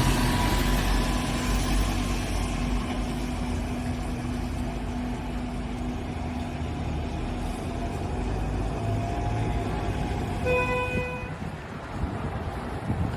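City street traffic: vehicles running and passing, with an engine hum under it. A car horn gives one short toot about ten seconds in.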